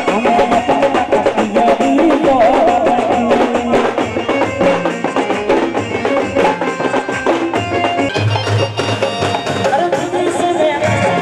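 Indian folk-style music with fast, dense drumming under a wavering melody line.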